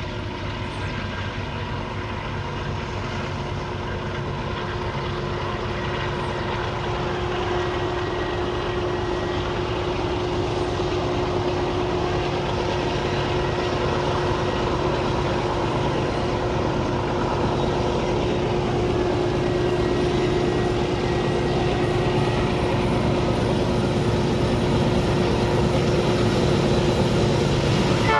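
Diesel-electric freight locomotives approaching at the head of a train of grain wagons. The engines run with a steady hum and grow gradually louder as the train draws near.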